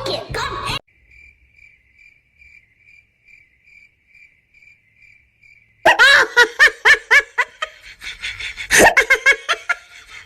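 Cricket chirping, a faint high chirp repeating about twice a second, then loud laughter with pitch swooping up and down about six seconds in.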